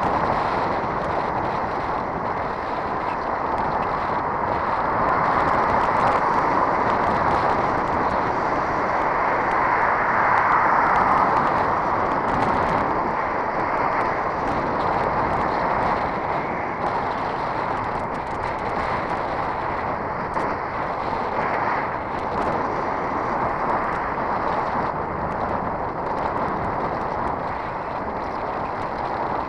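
Steady wind rush and road noise on the microphone of a camera riding on a moving bicycle, swelling for several seconds about ten seconds in.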